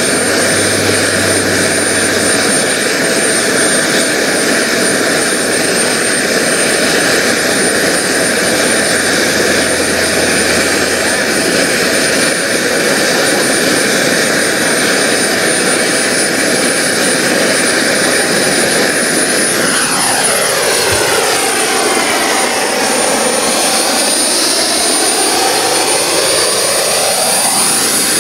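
Kingtech K-80E model jet turbine running with a steady high whine and a strong rush of exhaust noise. From about 20 seconds in, the sound takes on a sweeping quality, its tone swinging down and back up over several seconds as the jet moves past.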